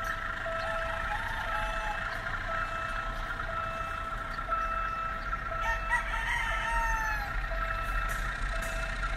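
A rooster crowing about six seconds in, with a shorter call about a second in, over a beep that repeats about once a second and a low steady rumble.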